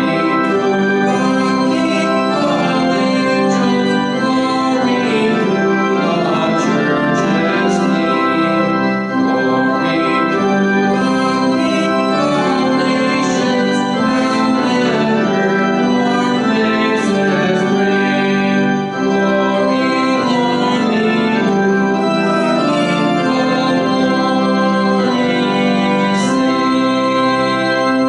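Church organ playing slow, sustained chords.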